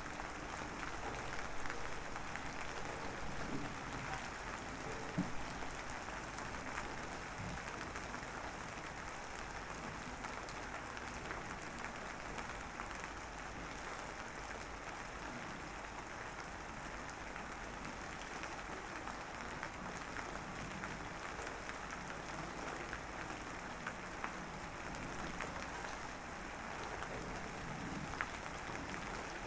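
Light drizzle falling steadily, an even patter of fine raindrops with scattered small ticks.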